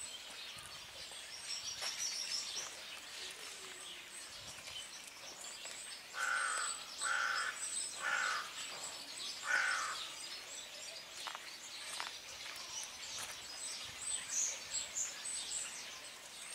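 Small birds chirping high and continuously, and a crow cawing four times, roughly a second apart, in the middle.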